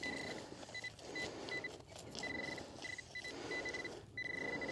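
A handheld metal-detecting pinpointer beeping as its tip is worked through loose soil. Its high, steady tone comes in uneven bursts, some short and some drawn out, as the probe passes over and close to a small metal target.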